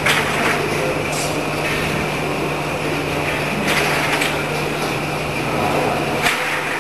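Rotary liquid washing, filling and closing machine running: a steady mechanical hum with a constant high whine, and short bursts of hiss every few seconds.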